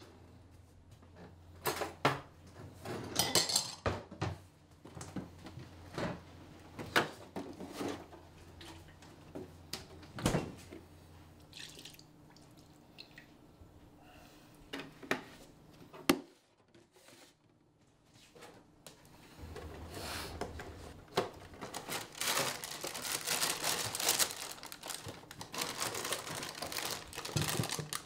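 Kitchen handling sounds: a ceramic bowl and dishes clinking and knocking on a counter, milk poured from a plastic jug into the bowl, then a long stretch of dense crinkling plastic as a cereal bag is opened and handled in the last third.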